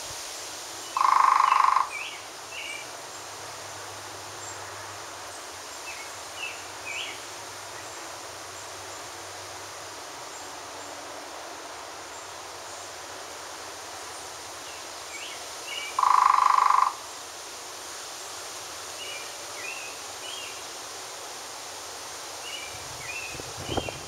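Outdoor ambience with faint, scattered bird chirps, broken twice by a loud, steady pitched tone lasting under a second, once about a second in and again about fifteen seconds later.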